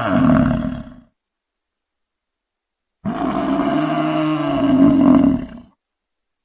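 Edmontonia dinosaur sound effect: a pitched animal-like call tails off in the first second, then after a gap of dead silence a second call lasts about two and a half seconds and stops.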